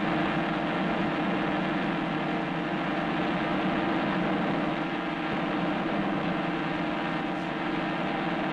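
A steady, even droning rumble with a faint hum, holding level without change: an electronic drone laid under the titles.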